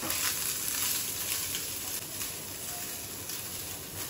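Soya chunks sizzling in a little ghee in a frying pan as they are turned with a silicone spatula.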